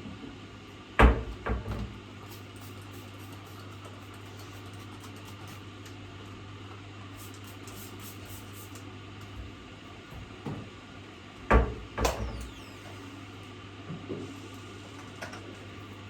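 Several sharp knocks and clatters of hard objects being handled and set down, two pairs of loud ones about a second in and near the middle, over a steady low hum that stops about two thirds of the way through.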